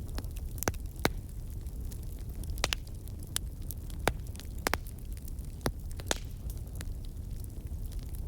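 Steady low rumble with scattered sharp clicks and crackles at irregular intervals.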